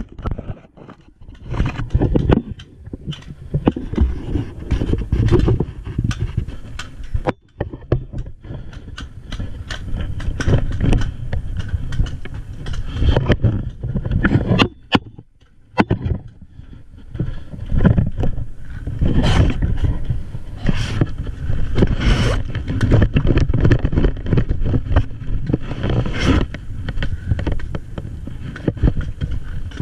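Clothing and gear rubbing and scraping against a body-worn camera as a player crouches and crawls through grass, with scattered sharp clicks and knocks.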